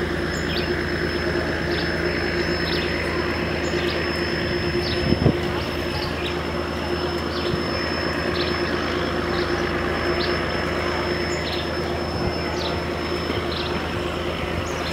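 Tugboat diesel engine running steadily under load while towing sugar barges, an even low drone. Short high chirps from a bird repeat about once a second over it.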